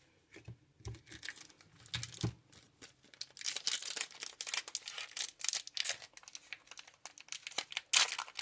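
A Digimon Card Game booster pack's wrapper being handled, crinkled and torn open. There are a few soft handling sounds at first, then steady crinkling and tearing from about three seconds in, loudest near the end.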